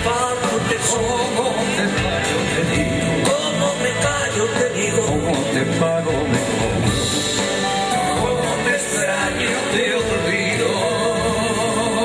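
A live band playing a song with acoustic guitars and percussion while a man sings over it, heard from among the audience.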